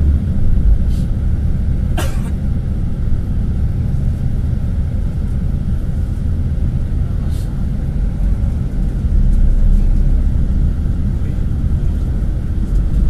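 Steady low rumble of a bus driving through town traffic, heard from inside the cabin. A short sharp chirp cuts in about two seconds in.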